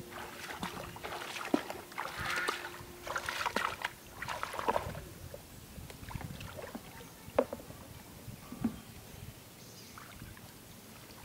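Feet splashing and sloshing through knee-deep shallow water while wading, busy and irregular for the first half, then quieter, with a couple of single sharp splashes as hands work in the water.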